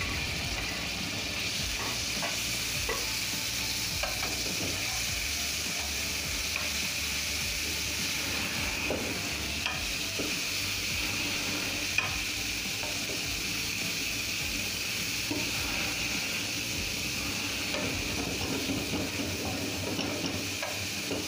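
Chicken breast strips sizzling in hot oil in a frying pan over a high gas flame, steady throughout, with a metal spatula scraping and stirring them around the pan in small clicks.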